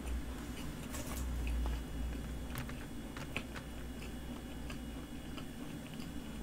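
Close-miked chewing of a crumbly, butter-cream-filled pastry, with small scattered crackles and mouth clicks over a low steady hum.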